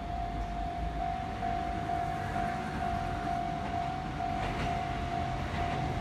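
Japanese railway level-crossing alarm ringing: a steady, evenly repeating electronic bell tone. Under it, the rumble of an approaching train grows near the end.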